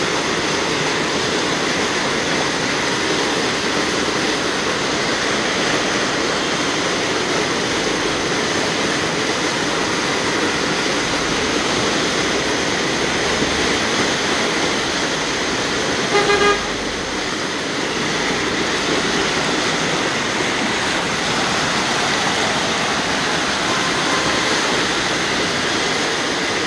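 Steady rush of floodwater, with cars driving slowly through the flooded street. About sixteen seconds in, one short car-horn toot.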